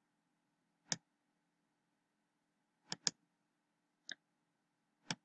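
Five sharp computer mouse clicks, two of them in quick succession near the middle, over a faint steady hum.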